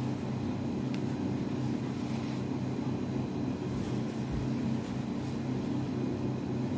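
A steady low mechanical hum, its pitch unchanging.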